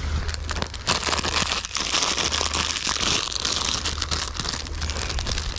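Crinkly plastic snack wrapper of a packaged croissant crinkling as it is pulled open by hand: a dense, irregular crackle starting just under half a second in, over a steady low rumble.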